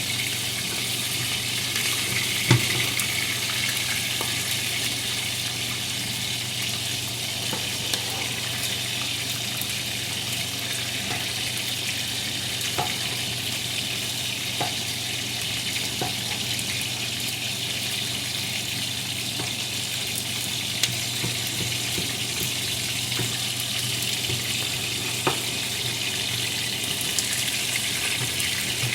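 Chicken drumsticks pan-frying in oil: a steady sizzle with a few short sharp clicks, the loudest about two and a half seconds in.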